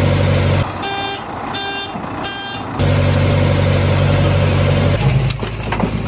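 Heavy truck engine running steadily, interrupted about a second in by three reversing beeps. Near the end the engine note drops and a run of clattering knocks starts.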